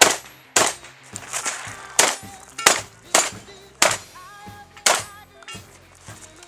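Shotgun firing a rapid string of shots during a practical shooting stage, each a sharp report with a short echo, roughly half a second to a second apart. The shots stop about five seconds in.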